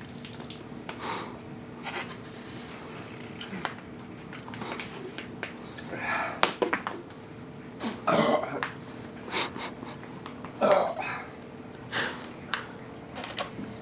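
People shotgunning cans of beer: gulping with short throaty sounds like burps and coughs, the loudest about 6, 8 and 11 seconds in, and scattered sharp clicks over a faint steady hum.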